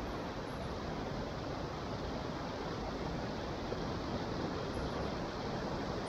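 Steady rush of water from a stream and waterfall running over rock ledges, an even hiss with no breaks.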